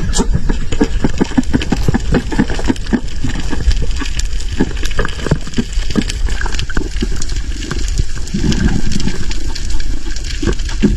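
Water sloshing and gurgling, with many quick crackling clicks over a low rumble.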